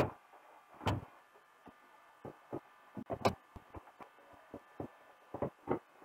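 Plastic back cover of a flat-screen TV being fitted and screwed down by hand: a series of short, irregular clicks and knocks, the strongest about a second in and about three seconds in, with lighter ticks between.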